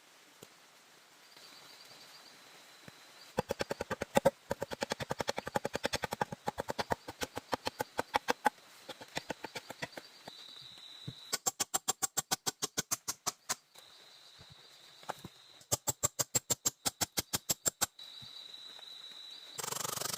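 Rapid runs of sharp, evenly spaced knocks, about eight a second, in three bursts of a few seconds each, with a faint steady high-pitched tone in the pauses between them.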